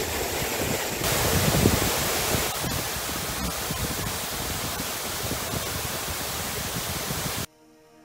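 Steady rushing hiss of a waterfall and water cascading over rocks, growing a little louder and brighter about a second in. The water sound cuts off suddenly near the end, and soft music begins.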